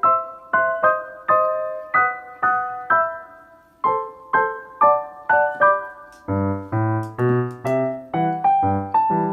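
Background piano music: a melody of single struck notes, about two a second, with lower bass notes joining about six seconds in.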